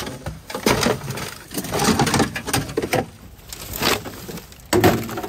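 Rummaging through a heap of old junk: rusty metal and wooden debris clattering, knocking and scraping as it is shifted, in several separate bursts.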